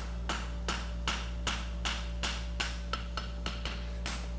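Hand hammer striking the end of a red-hot steel horseshoe bar held upright on an anvil, about three blows a second, each with a short metallic ring: upsetting the heel end to rebuild its thickness. A steady low hum runs underneath.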